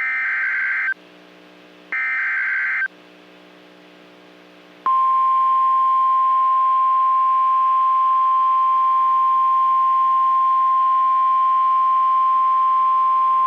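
NOAA Weather Radio Emergency Alert System signal: two one-second bursts of the SAME header's buzzing digital data tones a second apart, then, about five seconds in, the steady 1050 Hz warning alarm tone sounds and holds. This sequence marks the start of a newly issued warning.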